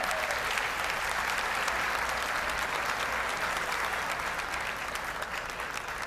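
Large audience applauding steadily: a dense, even patter of many hands clapping.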